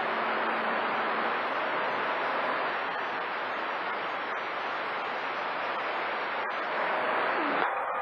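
CB radio receiver hiss and static on channel 28 with the squelch open between transmissions, a steady rushing noise. Near the end the hiss drops back as another station's carrier comes in.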